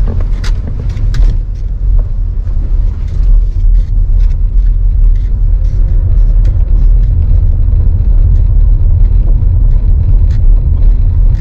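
Steady low road and engine rumble of a moving car, heard from inside the cabin, with a few short clicks about a second in.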